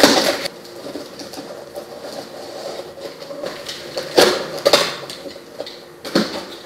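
Box cutter slitting packing tape on a cardboard carton, then tape and cardboard flaps pulled open, with scraping and tearing. The loudest bursts come at the start and in two quick tears about four seconds in, with rustling in between.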